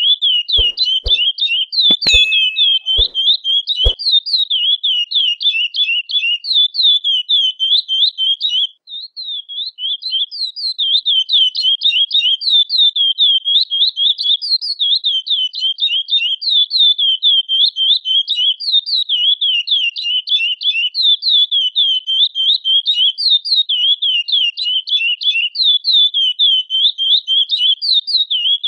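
Curió (chestnut-bellied seed finch) calling and singing: a rapid, unbroken string of short, downward-slurred whistled notes, several a second, with a brief break about nine seconds in. A few sharp clicks sound during the first four seconds.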